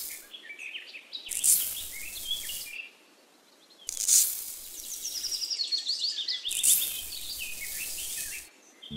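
Fine dry sand poured from a small plastic bucket onto a plastic tray, hissing in four spells of a second or two each, over birds chirping throughout.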